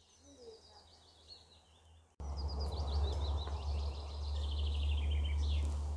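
A songbird singing: a quick run of high notes sliding steadily down in pitch, faint at first, then a louder song ending in a short upturn. About two seconds in, a steady low rumble comes in abruptly beneath it.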